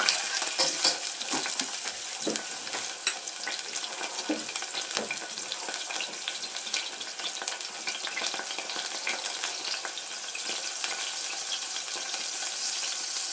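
Chopped garlic sizzling in hot oil in a stainless steel saucepan, a steady fine crackle. Near the start a metal spoon stirs and clinks against the pan.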